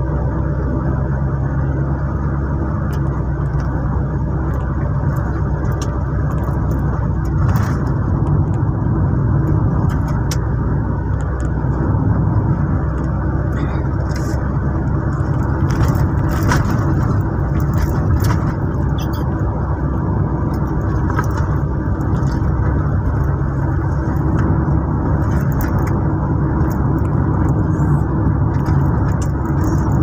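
Car driving, heard from inside the cabin: a steady rumble of engine and tyres on a rough road surface, with a few short clicks and ticks now and then.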